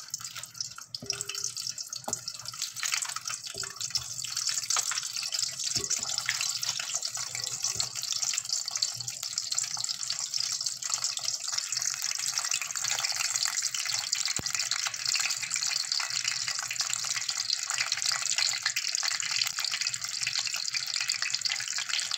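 Vegetable spring rolls frying in hot oil in a metal pot, a steady dense sizzle and crackle.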